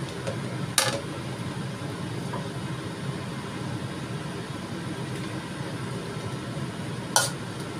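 Steady low kitchen rumble, with two sharp clinks of a metal spatula against the wok, one about a second in and one near the end.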